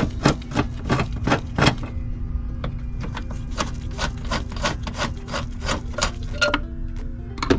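Ratchet wrench with a socket extension clicking in a steady rhythm, about two to three clicks a second, as it turns out a battery tray bolt.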